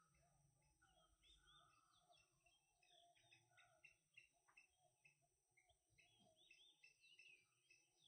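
Faint bird chirping: many short chirps repeated in quick runs, with a few longer whistled notes in the first two seconds.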